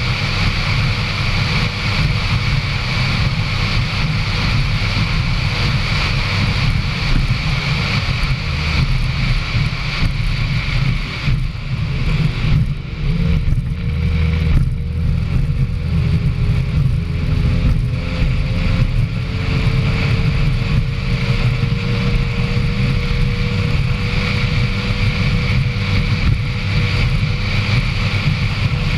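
A racing powerboat's engines run hard at speed, mixed with heavy wind and water rush on a deck-mounted microphone. The sound dips and wavers briefly about halfway through as the boat banks through a turn, then settles back to a steady run.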